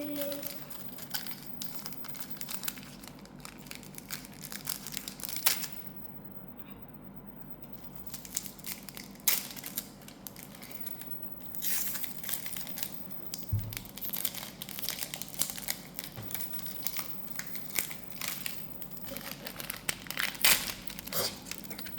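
Crinkling and tearing of a Pokémon card booster pack's foil wrapper as it is torn open and handled, in many quick crackles. There is a short lull about six seconds in, and the crinkling comes denser over the second half.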